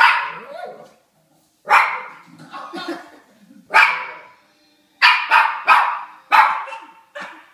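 A dog barking repeatedly, about ten sharp barks in irregular runs, several coming close together in the second half.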